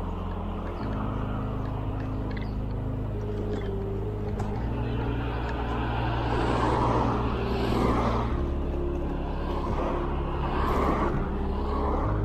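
Cars passing close by the bicycle: two rushes of tyre and engine noise that swell and fade, about six and ten seconds in. Low, sustained background music notes run underneath.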